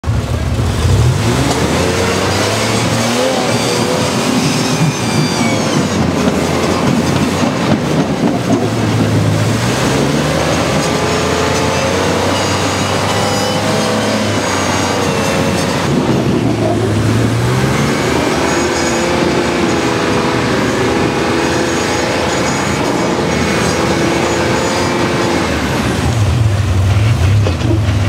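Single-seat rock buggy's engine revving in repeated surges, its pitch climbing and falling back over and over as it crawls up rock ledges.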